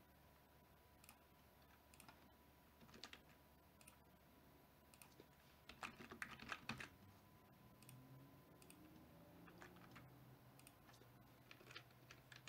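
Faint typing on a computer keyboard: scattered single keystrokes with a quick run of keys about six seconds in and another run near the end.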